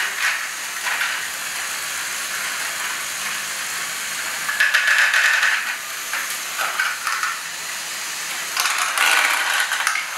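LEGO Great Ball Contraption modules running: plastic Technic gears and mechanisms whirring and ratcheting as plastic balls rattle through the lifts and chutes. There are louder bursts of ball clatter about halfway through and again near the end.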